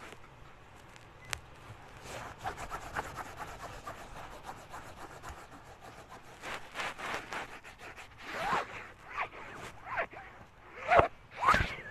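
Scratchy rubbing close to the microphone, a dense crackle of small scrapes. Several louder short sounds that slide in pitch come in over the last few seconds.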